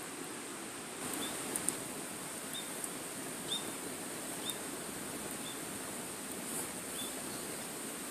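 Wood fire burning with a steady low hiss and scattered sharp crackles and pops. Faint short high chirps repeat roughly once a second.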